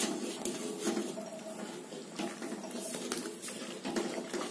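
A ladle stirring thick rice-flour and jaggery dough in a cooking pan, with irregular scrapes and light knocks against the pan.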